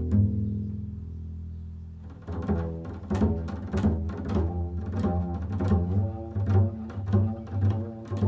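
Solo upright double bass improvising: a low note rings and fades over about two seconds, then a run of quick low notes with sharp attacks, several a second.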